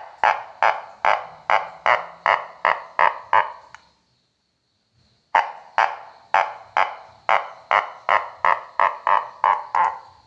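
Homemade tin-can frog toy croaking in a quick series of sharp pulses, about three a second. It pauses about four seconds in and starts again after a second and a half.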